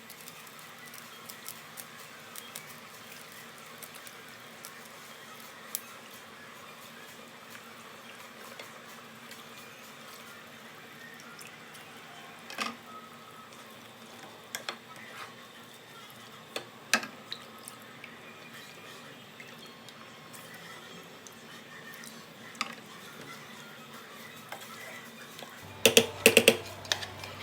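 Kitchen work sounds: a steady watery hiss with scattered small clicks and taps of utensils, several sharper knocks through the middle, and a burst of loud clattering near the end.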